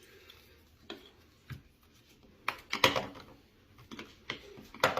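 Sharp plastic clicks and knocks from a suction-cup gadget being handled and fitted together: a couple of faint ticks, then a louder cluster of clicks about two and a half seconds in and two more near the end.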